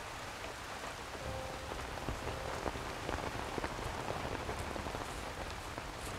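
Heavy rain falling steadily on a street.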